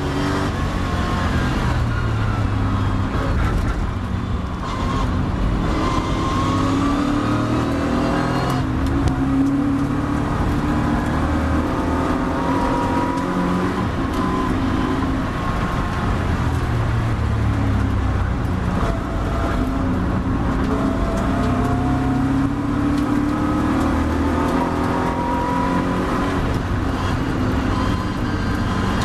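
Triumph TR7 race car's engine heard from the cockpit at racing speed, its note climbing under acceleration and dropping back several times at gear changes and lifts, over constant wind and road rush.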